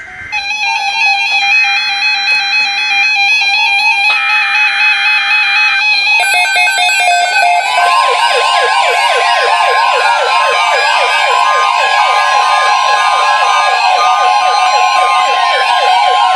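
NOAA Weather Radio alert with several weather radios going off together, sounding warbling electronic alarm tones. In the first six seconds the broadcast's SAME data header buzzes twice. About eight seconds in, the steady 1050 Hz weather alert tone starts, joined by fast-repeating chirps and falling siren-like sweeps from the radios' alarms.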